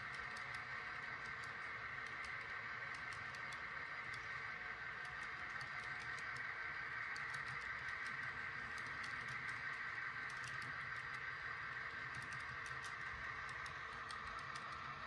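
Model railroad freight cars rolling past on model track: a steady rolling hiss from the metal wheels with a light, irregular patter of clicks as they cross rail joints.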